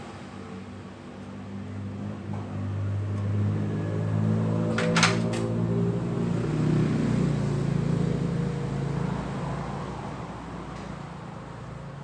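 A machine hum from a running motor or engine, swelling from about two seconds in and fading toward the end, with one sharp click about five seconds in.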